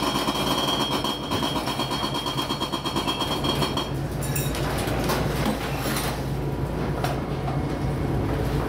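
Steady low hum of a ship's machinery, with frequent knocks and rattles of loose things as the vessel works in heavy seas. A faint high whine stops about halfway through.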